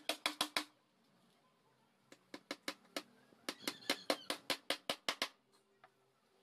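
A claw hammer driving nails into a wooden speaker-box panel, in quick even blows of about five a second. A short run of blows at the start, a pause of about a second and a half, then a longer run of blows for about three seconds.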